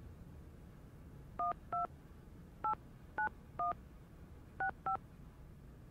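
Touch-tone telephone keypad dialing a number: seven short two-note beeps, unevenly spaced, starting about a second and a half in.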